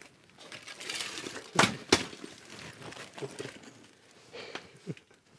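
Snow shovel and chunks of ice being handled on the floor: crackling and scraping, two sharp knocks a little under two seconds in, then a few softer knocks.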